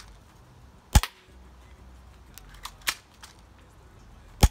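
Airsoft pistol being fired: sharp snaps, the two loudest about a second in and near the end, with a smaller snap and a few faint ticks between.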